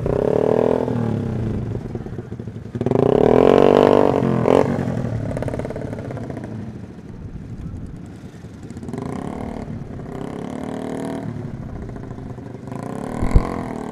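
Motorcycle engines idling and revving up in short surges, the strongest about three seconds in and more near the end, with a short thump just before the end.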